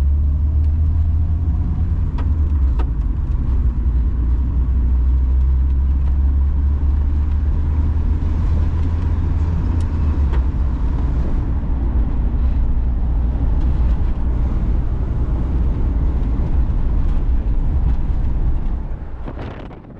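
Volkswagen Kombi driving at highway speed, heard from inside the cab: a steady low engine and road drone, which drops away sharply near the end.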